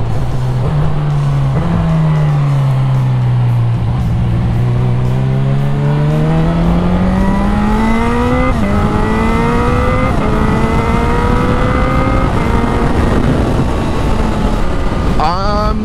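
Honda CB1000R's inline-four engine accelerating through the gears. The pitch climbs steadily, drops at an upshift about eight and a half seconds in, climbs again and shifts once more about ten seconds in, then holds steady at cruising speed. Wind rushes over the microphone throughout.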